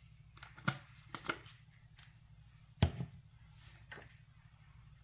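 A few sharp taps and clicks of a glass spice shaker being shaken over a dish and handled, with one louder knock a little under three seconds in.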